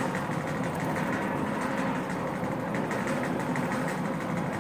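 PP1621AL fully automatic pallet stretch wrapper running mid-wrap: the turntable spins the loaded pallet while the powered pre-stretch carriage feeds film onto it, giving a steady mechanical hum with a faint whine.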